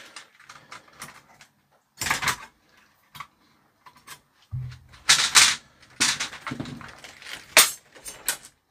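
Small metal tools and parts being handled and put down on a workbench: irregular sharp clicks and clatters, with the loudest knocks about two, five, six and seven and a half seconds in.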